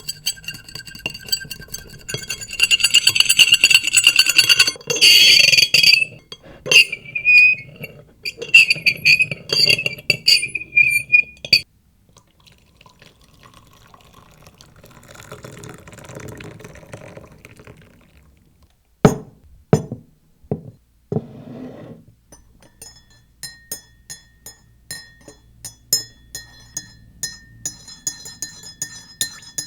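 Hard objects clinking and ringing with several clear tones for about ten seconds, then a few sharp knocks, then a rapid run of ringing clinks about two to three a second near the end.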